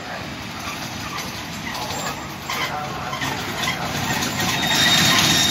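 MÁV V43 (class 431) 'Szili' electric locomotive running light, passing close by, its wheels rolling and clattering on the rails. The sound grows louder toward the end, where a high, thin squeal of the wheels comes in as it passes nearest.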